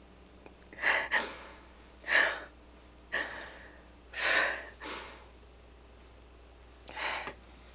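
A woman sobbing in grief: a string of gasping breaths, several close together, then a pause before one last gasp near the end.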